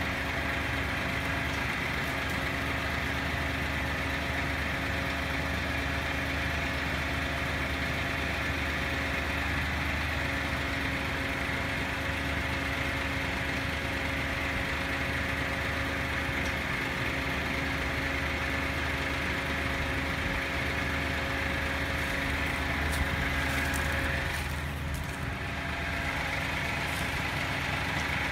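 Skip-bin truck's diesel engine idling steadily. About four seconds before the end its note dips briefly and shifts, then it runs on steadily.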